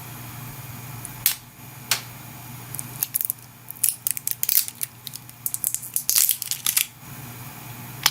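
Packaging being opened by hand: two sharp clicks, then a few seconds of rapid crackling and tearing, over a steady low hum.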